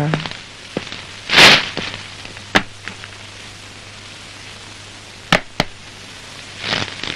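A shopping bag is set down on a plastic chair with a brief, loud rustle, followed by a few light clicks and knocks as shoes are taken off on a tiled floor. Under it all runs a steady hiss and a low hum.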